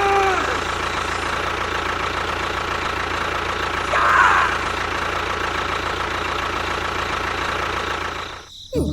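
A small motor running steadily, then cutting off abruptly near the end.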